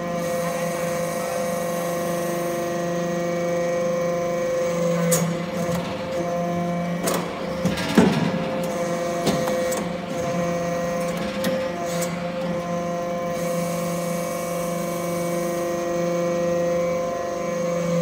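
Hydraulic metal-chip briquetting press running: a steady hum from its hydraulic pump with several fixed tones, broken by scattered metallic clanks as pressed briquettes are pushed out, the loudest about eight seconds in.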